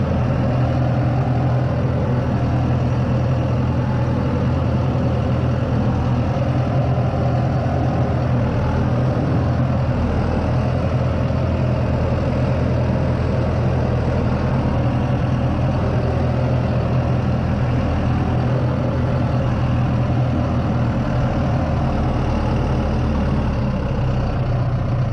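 Heavy engine of a log-loading machine running steadily at an even speed, with a constant low hum that does not change in pitch.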